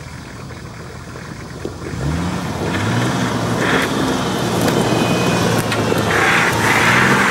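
Nissan Patrol 4x4's engine pulling under load as it climbs a rocky trail. It grows louder and rises in pitch about two seconds in, then holds a steady note, with a few short rushing noises over it.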